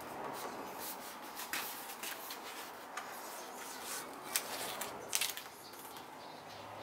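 Hands rubbing and pressing a plastic overfender onto the car body to seat its double-sided tape, with scattered light taps and clicks over a steady background noise.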